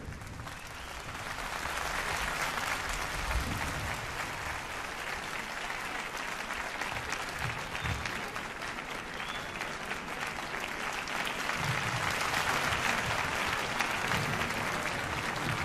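Concert hall audience applauding, building over the first couple of seconds and then holding steady.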